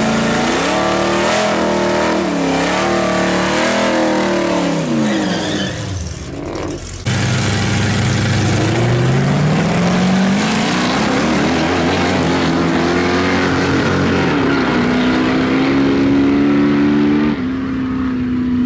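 Drag-racing engines: a 1958 Dodge pickup and another car rev at the starting line, the pitch rising and falling for several seconds. After a cut comes a full-throttle launch, the engine pitch climbing steadily for about five seconds and then holding high, with two sudden pitch changes near the end.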